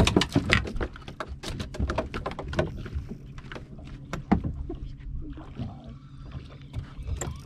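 Water splashing and slapping against a bass boat's hull, with irregular knocks and clatter on the deck, busiest in the first few seconds, over a low steady hum.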